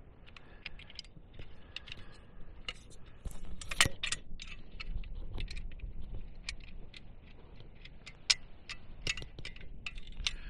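Irregular sharp clicks and cracks of dry sticks and leaf litter being handled, with a louder snap about four seconds in and another near eight seconds.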